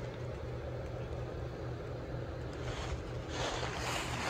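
Wind buffeting the microphone outdoors: a steady, uneven low rumble, with a stronger gust of rushing noise about three seconds in that lasts about a second.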